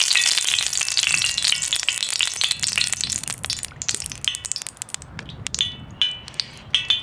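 Vegetable oil crackling and sizzling in a hot frying pan just after being poured in. The dense crackle thins out over the few seconds, leaving scattered pops.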